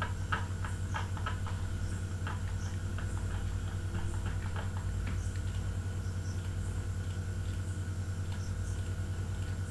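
Computer mouse clicking faintly and irregularly over a steady low electrical hum.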